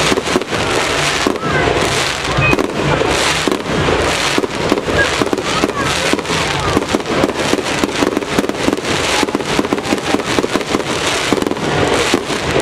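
Fireworks display with golden crackling shells bursting: a dense, unbroken run of rapid pops and crackles.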